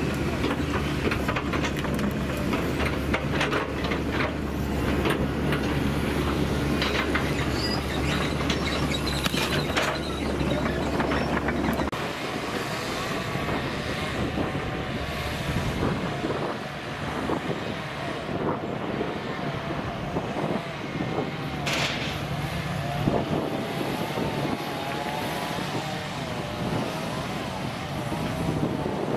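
A motor running steadily, with scattered knocks and clatter. The deep hum cuts out about twelve seconds in, leaving wavering tones and knocking.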